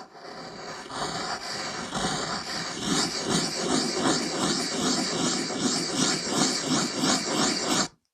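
Graphite pencil scratching on paper in quick repeated strokes. It grows louder about three seconds in and settles into about three strokes a second, then stops abruptly near the end.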